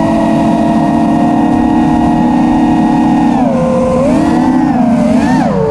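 Brushless motors and propellers of an FPV racing quadcopter whining steadily, then about three seconds in the pitch dips and rises twice as the throttle is worked.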